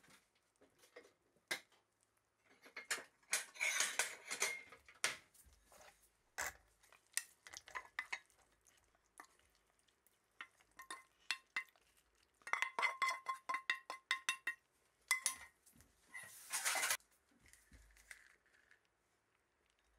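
Wooden spatula stirring and scraping saucy fried pork around a frying pan, with knocks and clinks against the pan. About two-thirds of the way through comes a quick run of knocks that ring on, as the food is scraped out of the pan into a second pan.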